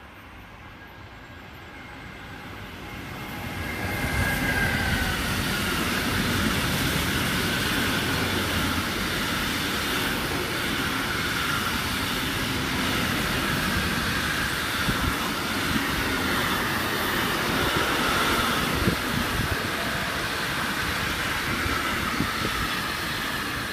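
Freight train of container and tank wagons passing close by: a steady rumble of wheels on rail that builds over the first four seconds and then holds, with a high squeal from the wheels.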